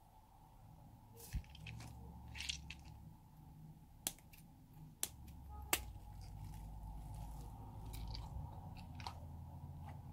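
Scissors cutting into a soft rubber dinosaur toy: a few sharp snips and crunches over low handling noise.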